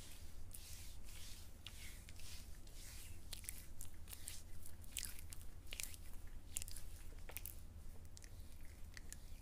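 Hands rubbing and kneading a gritty brown scrub over skin on an arm and shoulder: irregular short scratchy rasps, many strokes, over a steady low hum.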